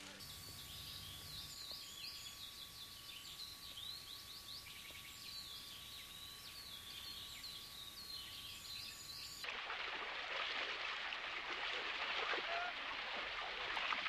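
Many birds chirping and calling in an outdoor ambience, with a faint steady hum beneath. About nine and a half seconds in, it cuts abruptly to a louder, even rushing noise with a few scattered bird calls.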